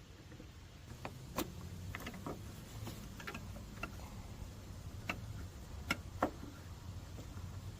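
Irregular small sharp plastic clicks and taps, about a dozen, from a turn-signal bulb socket being handled and fitted into a car's tail-light housing.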